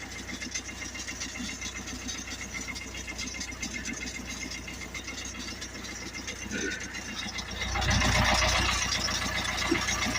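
Car engine idling just after a morning cold start, making an unexplained noise that the owner wants identified. The sound grows louder about eight seconds in.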